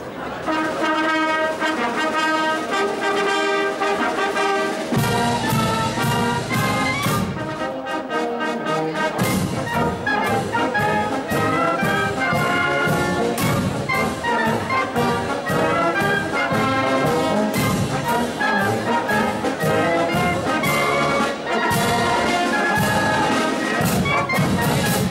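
Traditional brass and wind band of tubas, trombones, saxophones and other horns playing a tune in parts with held notes. The low brass and a steady beat come in about five seconds in.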